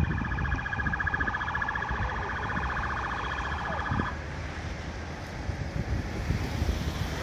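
A rapidly pulsing electronic alarm tone that stops abruptly about four seconds in, leaving a low street rumble.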